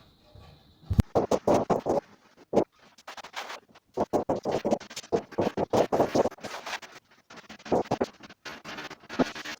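Rapid back-and-forth scraping strokes of a hand tool against a surface, coming in bursts of several strokes with short pauses between.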